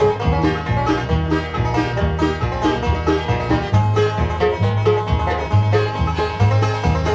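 Instrumental bluegrass band music: a five-string banjo picking fast rolls over a steady alternating bass line and guitar, with no singing.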